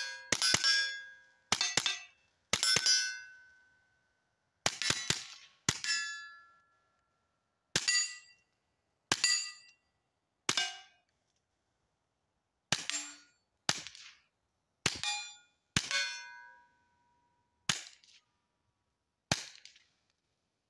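Suppressed .22 LR shots from a KelTec CP33 pistol fitted with a SilencerCo Sparrow titanium suppressor, fired at an uneven slow pace of about one a second, sometimes two close together. Many shots end in a brief metallic ring from steel targets being hit.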